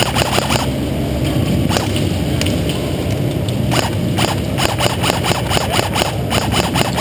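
Airsoft guns firing in rapid rattling bursts of clicks, heaviest in the second half, over a steady low hum.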